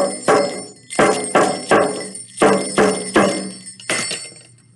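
Ringing, clanging percussion struck in quick groups of three, then one last strike, making a noisy jumble meant as a racket rather than music.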